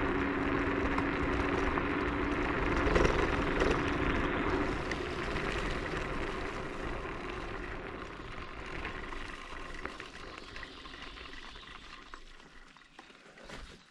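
Riding noise of an electric scooter: wind rushing over the microphone and tyres rolling on a forest track, with a steady hum that stops about four seconds in. The noise fades steadily as the scooter slows down.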